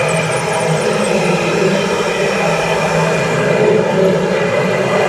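Radio-controlled model construction machines running: a steady mechanical drone from their motors.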